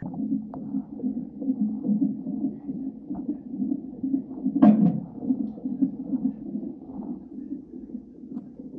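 Cardiotocograph (fetal monitor) playing the unborn baby's heartbeat through its Doppler speaker: a rapid, pulsing whoosh at about 140 beats a minute. There is a brief louder rustle just before the middle.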